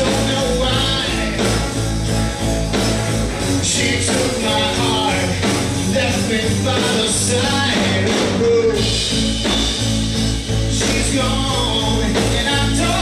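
Live rock band playing: electric guitars and drums, with a voice singing over them.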